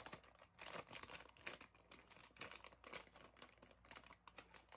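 Faint, irregular crinkling and rustling of a thin white wrapper being handled and pulled open to get a blind-box figure out.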